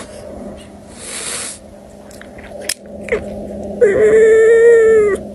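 Domestic cat meowing: a breathy sound about a second in, a short chirp near three seconds, then one long, level meow lasting over a second near the end.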